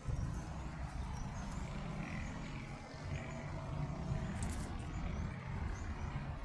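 Wind buffeting the camera microphone: an uneven low rumble that rises and falls in gusts.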